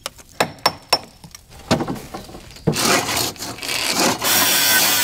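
Hammer driving a chisel to knock old exterior render off a door reveal: a series of sharp knocks, about two a second, over the first two and a half seconds. Then a steady, dense noise takes over.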